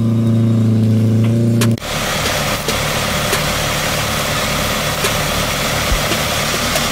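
Off-road 4x4 engine running steadily at idle, then, after an abrupt change about two seconds in, a rougher, noisier engine sound of a four-wheel-drive crawling through mud and brush.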